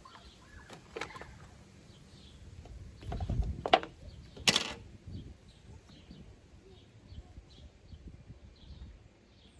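Handling noise as the AirPods box, charger and charging cord are moved about: a few sharp clicks and knocks, the loudest about three and a half and four and a half seconds in, with a dull rumble just before them.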